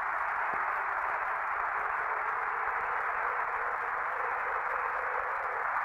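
Steady hiss of an open air-to-ground radio channel between transmissions, thin and band-limited like the radio voices, with a faint steady tone underneath.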